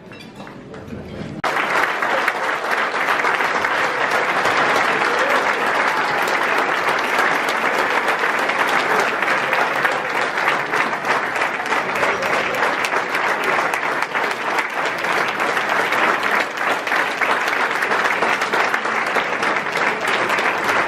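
Large crowd applauding: dense, steady clapping that starts abruptly about a second and a half in and keeps on without letting up.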